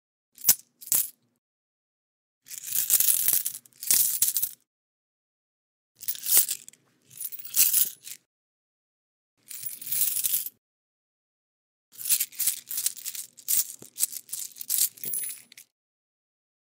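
Metal coins clinking in separate bursts: two quick clinks near the start, then five bursts of about a second each, and a longer run of rapid clinks near the end. There is dead silence between the bursts.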